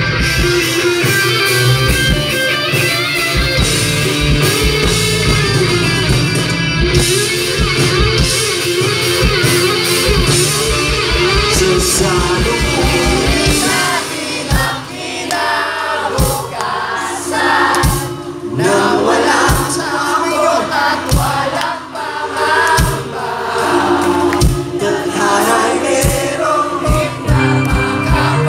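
Live rock band with a lead singer. Electric guitars, bass and drums play loud under the vocal. About halfway through, the sound thins to singing over sparse drum hits.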